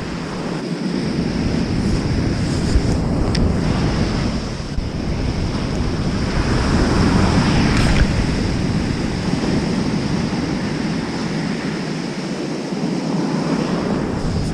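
Waves breaking on a sandy beach in a high winter surf, with wind blowing on the microphone; the wash swells louder around the middle.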